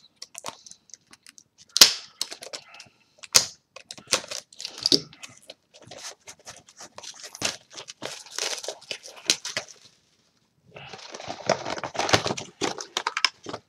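Plastic and foil card packaging being torn open and crinkled: the wrapping of a trading-card booster box and its booster packs being opened by hand. It is irregular crackling with a few sharp clicks, a brief pause, then steadier crinkling near the end.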